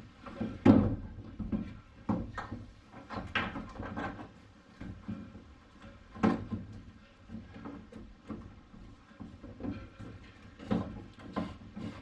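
Irregular knocks, clicks and rustles of heavy battery cables being handled, dragged and fed through the car's steel floor and body panels. The loudest knock comes about a second in.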